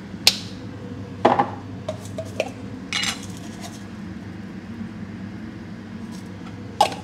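Metal utensils and dishes clinking and clattering during food preparation: a few separate sharp clinks spread through, with a short scraping clatter about three seconds in.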